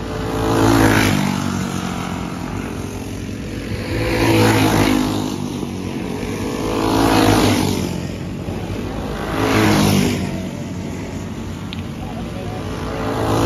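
Junior clone-class racing go-karts, with small single-cylinder four-stroke engines, buzzing around a dirt oval. Four times, a few seconds apart, the pack swells loud as it passes close and then fades, with the engine drone of the field underneath.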